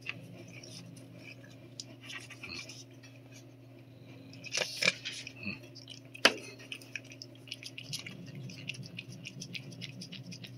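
A cat licking a soft lickable treat from a squeeze tube: small wet licking clicks, coming quicker, several a second, over the last few seconds. A brief louder rustle and a single sharp tap about halfway through.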